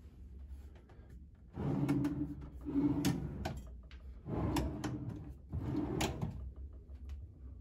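Dresser drawers sliding open and shut, four strokes in all, with sharp knocks as they reach their stops.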